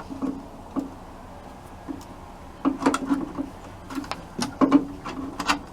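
Irregular clicks, knocks and scuffs of a rubber breather hose and air breather filter being forced onto a stiff fitting on a Type 1 VW engine, coming in clusters about a third of the way through and again near the end.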